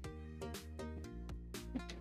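Background music, a melody of separate notes, each starting cleanly and held briefly.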